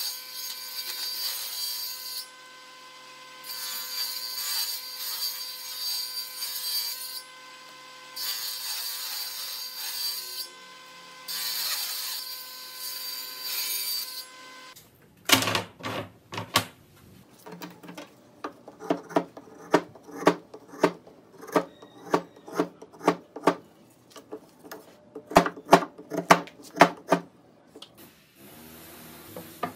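Table saw running with a steady motor hum while ripping thin strips off a hardwood block in four passes, each cut adding a loud hiss of blade through wood. About halfway the saw sound stops, and an irregular run of short, sharp strokes follows, a couple a second.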